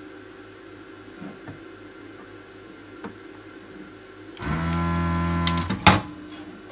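Vacuum desoldering gun's pump switching on and running with a steady hum for about a second and a half as it sucks molten solder from a through-hole joint, then stopping, followed by a sharp click.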